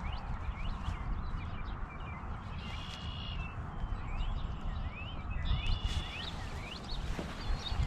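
Birds calling: many short, quick chirps rising and falling in pitch, with a couple of brief steady whistled notes, over a low background rumble.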